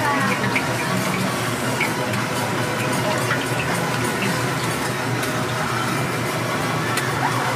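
Hot oil sizzling steadily around a pancake being deep-fried, with a few light clicks of metal tongs.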